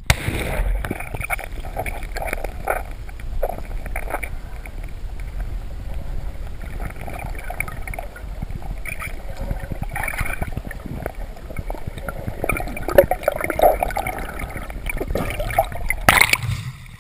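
Muffled sea water gurgling and sloshing around a camera held underwater, with scattered bubbling, a sudden start and a louder splash near the end.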